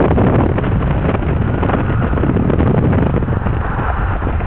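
Steady rush of wind and tyre noise from a car travelling at highway speed, with wind buffeting the microphone.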